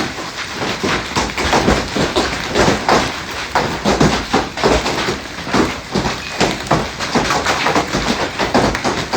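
Heavy hail pelting down: a dense, irregular clatter of many hailstone impacts, several each second.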